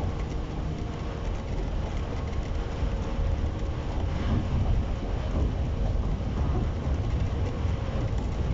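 A JR East 115 series electric train standing at a station platform, its onboard equipment giving a steady hum with a low rumble beneath.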